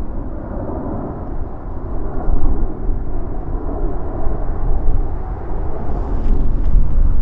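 Jet engines of an Airbus A350-900 airliner: a loud, deep rumbling roar that swells and fades.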